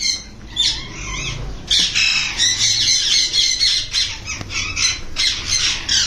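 Sun conures and other caged parrots screeching: harsh squawks overlapping one after another, with a couple of brief lulls.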